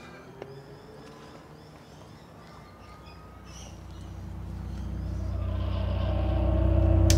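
Faint bird chirps, then from about four seconds in a low musical drone of steady stacked tones swells in, growing steadily louder to the end; a brief sharp click sounds near the end.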